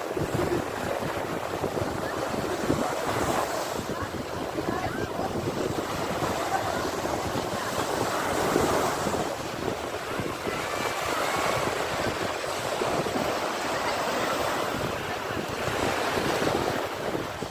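Sea waves breaking and washing on a shore: a continuous rushing surge that swells and eases every few seconds.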